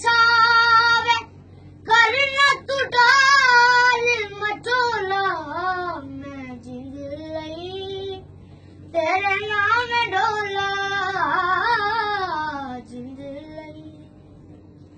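A young boy singing a Punjabi song unaccompanied, in a high voice with long held notes and wavering, ornamented downward glides. He sings three phrases, with short breaths about a second and about eight seconds in, and the last phrase trails off near the end.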